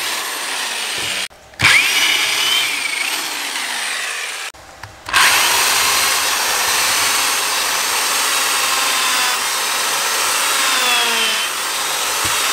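Electric drill with a twist bit boring holes through pine 2x2 framing. The motor whine rises and falls in pitch, and the drill stops briefly twice, about a second in and again about four and a half seconds in, before running on.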